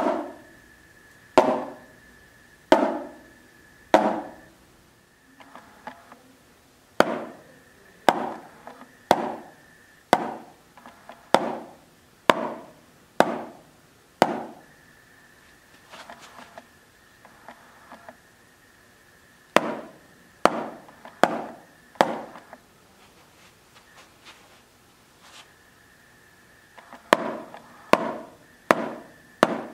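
Wooden snare drumsticks striking a Remo drum practice pad in single strokes, each thrown down from the wrist and rebounding. The taps come one at a time, mostly about a second apart in groups, and come faster near the end.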